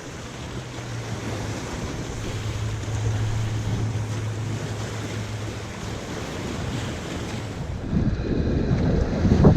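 Wind and surf on the shore, with wind buffeting the microphone. A steady low hum lies under it for the first five seconds or so. The buffeting grows louder and rougher about eight seconds in.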